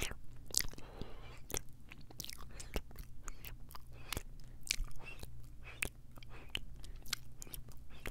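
Close-miked kisses and wet mouth sounds pressed right against a Tascam recorder's microphones: a quick, irregular string of sharp lip smacks and tongue clicks.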